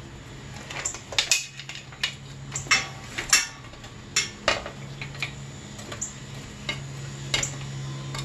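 Scattered sharp metal clicks and clinks as a dirt bike's rear-wheel hardware is handled to take the wheel off, over a steady low hum.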